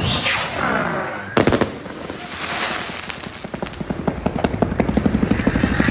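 Fireworks going off: crackling with a whistling tone in the first second, a loud bang about a second and a half in, then a fast run of pops that grows denser toward the end.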